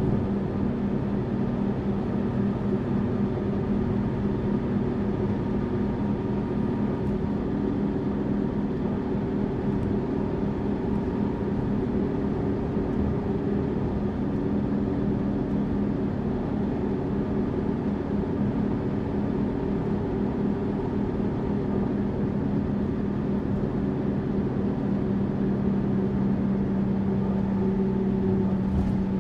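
Tour bus engine running steadily with road noise, a continuous low drone; the engine's hum grows a little stronger in the last few seconds.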